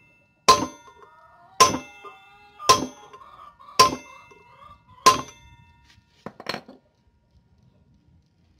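Hammer blows on a steel rod set against a new ball bearing, driving it into a motorcycle's front wheel hub: five ringing metallic strikes about a second apart, then a couple of light taps. The bearing is being knocked down until it sits flush in its seat.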